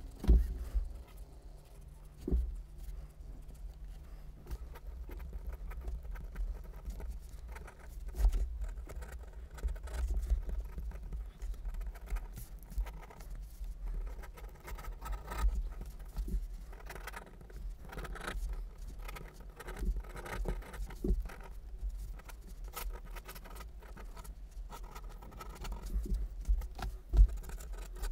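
Ink pens on paper: quick, irregular scratching and tapping strokes of a brush pen and a fine-tipped pen as a sketch is drawn, with a low rumble and a few dull thumps.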